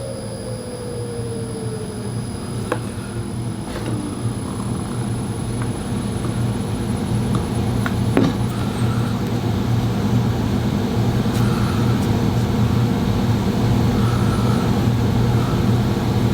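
Steady hum of a running motor, with a tone sliding down in pitch over the first couple of seconds and a few light clicks as the clipper blade parts are handled during reassembly and oiling.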